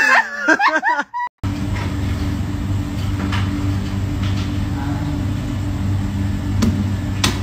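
A steady low mechanical hum made of several held tones over a noisy haze, with two sharp clicks near the end. Before it, about a second of high, wavering cries.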